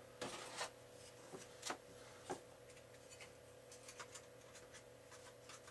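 Faint handling noises of RC airplane kit parts being moved on a workbench: a few light knocks and rustles, the clearest in the first two and a half seconds, over a steady faint hum.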